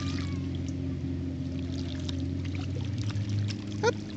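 Steady low engine hum that turns slightly pulsing in the last second, with faint light ticking over it. Near the end, a brief chirp that sweeps up in pitch stands out as the loudest sound.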